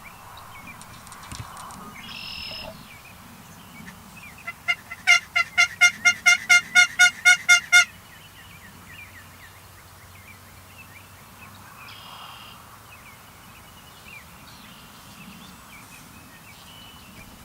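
Background birdsong outdoors, with a loud run of about fourteen clear calls at a steady pitch, about four a second, lasting some three seconds.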